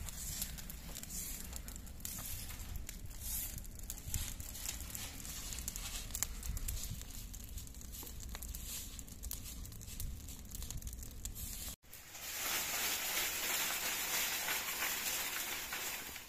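A pile of dry leaves burning in a small bonfire, crackling over a low rumble. After a sudden cut about twelve seconds in, a soft grass broom sweeps dry leaves across a concrete floor with a louder, steady swishing hiss.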